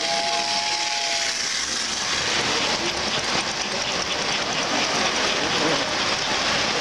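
American Flyer model train: a steady two-tone whistle for about the first second and a half, then the continuous clatter and rumble of a freight train's cars rolling past close by on the track.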